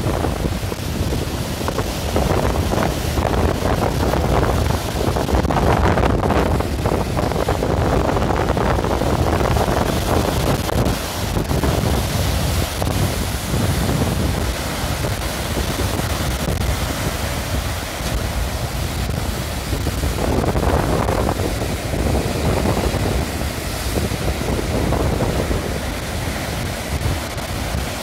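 Baltic Sea surf breaking and washing up a sandy shore in strong wind, swelling and easing in surges every few seconds, with heavy wind rumble buffeting the microphone.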